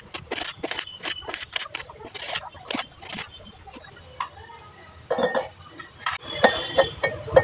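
A knife slicing guava against a plate: a quick run of short, sharp taps. Then, after a pause, guava pieces drop into a glass jar and knock against the glass.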